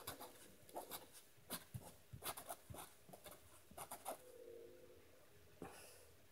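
Pen writing on paper: a quick run of short scratchy strokes for about four seconds, then a single stroke near the end, over a faint steady hum.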